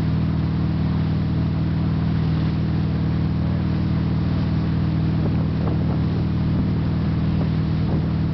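Mastercraft 205 wake boat's inboard engine running at a steady speed, a constant low drone, with the rush of its churning wake.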